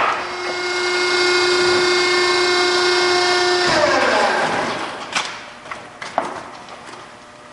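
Hydraulic tire baler's power unit whining steadily at one pitch for about three and a half seconds, then winding down in a falling glide as it shuts off. A couple of sharp knocks follow.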